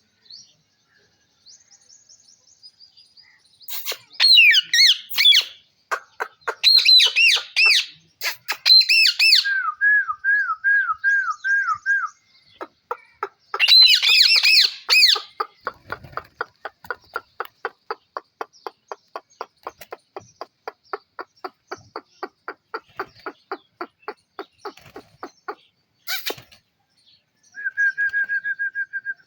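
Pet parrot calling: several loud, harsh squawks in the first half, two short runs of quick repeated whistled notes, and a long even series of short chirps at about four a second that stops a few seconds before the end.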